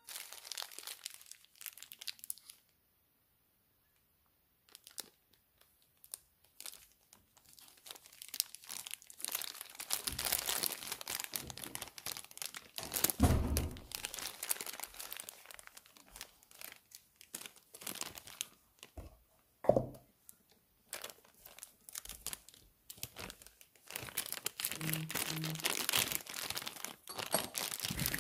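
Clear plastic watch wrapping crinkling and rustling as it is handled and pulled off the watch, in irregular bursts. There is a brief silent gap about three seconds in, and two louder knocks come near the middle and about two-thirds through.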